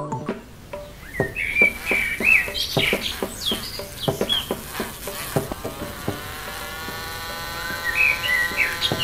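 Small birds chirping over a series of light clicks and taps. From about six seconds a small electric motor sets up a steady, slightly rising whine as it drives the belt-and-wheel rig.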